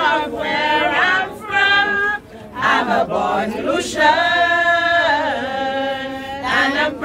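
A group of people singing together without accompaniment, with a long held note about four seconds in that then falls away.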